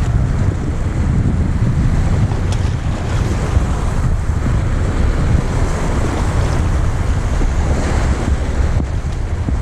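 Wind buffeting the microphone in a gusting low rumble, over the steady wash of lake water at the shoreline.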